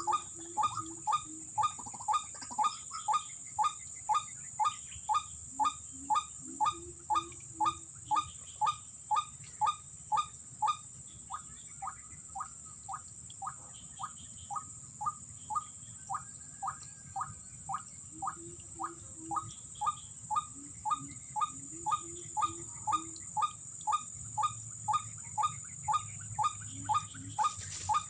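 White-breasted waterhen (ruak-ruak) calling: a steady, even string of short notes, about two a second, with a brief pause about halfway through. A steady high insect buzz runs underneath.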